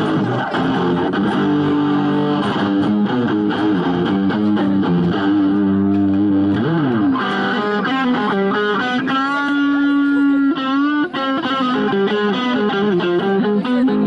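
Double-neck electric guitar played on its six-string neck in a blues solo. Lower riffing in the first half gives way to higher lead lines, with a long held note bent and shaken with vibrato about two-thirds of the way through.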